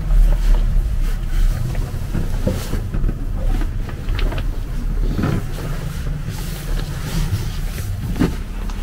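Steady low rumble of an aluminium sailing yacht underway in a rolling sea, heard from inside the cabin, with a few scattered knocks and creaks.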